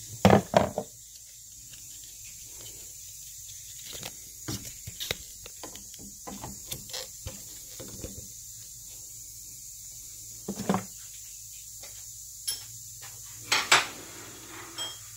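Scattered metallic clinks and knocks of hand tools against metal while 13 mm bolts are being undone on a car's exhaust downpipe, with a loud cluster of knocks about half a second in, another near eleven seconds, and a third near the end.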